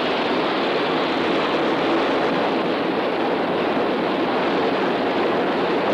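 A fishing trawler's engine room, the ship's main engine running with a steady, even mechanical din.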